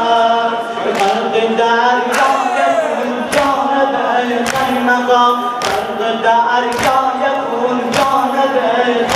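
Men chanting a Shia mourning lament (noha) together, with the crowd's palms striking their chests in unison (sinezani) in a slow, even beat, a strike slightly more than once a second.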